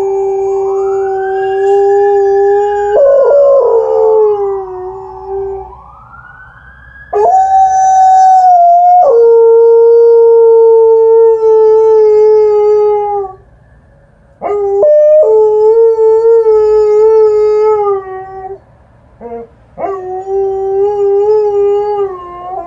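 Alaskan Malamute howling in response to an ambulance siren: four long, steady-pitched howls with short breaks between them, and a short one just before the last. The siren's rising and falling wail sounds faintly behind the first two howls.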